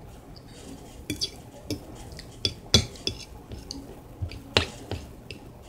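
Metal fork clinking and scraping against a ceramic plate as it cuts through soft bean-covered tortillas: a string of about ten sharp clicks, the loudest near the middle and again about four and a half seconds in.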